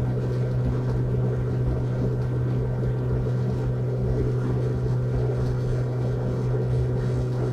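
Honda 100 four-stroke outboard running steadily at full throttle, around 5800 rpm, with the boat planing at about 63 km/h. A constant low drone with no change in pitch or level.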